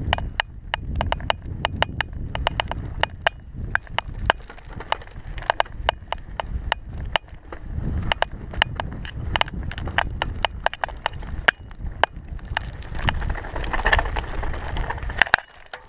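Mountain bike riding over a rough dirt forest trail: a low rumble of wind and tyres on the microphone, with frequent sharp clicks and knocks from the bike rattling over bumps and roots.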